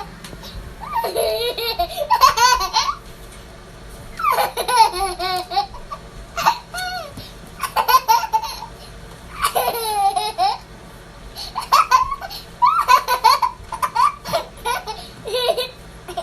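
A toddler girl laughing hard in bursts of high-pitched laughter every couple of seconds, with short pauses between them.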